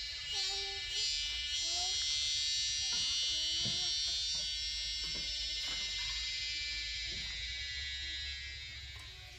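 A high, steady buzzing that swells about half a second in and fades near the end, with a few short, low calls beneath it.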